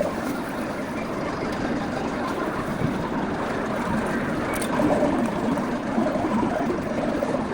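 Steady, dense background din of a busy game arcade, with no single machine standing out.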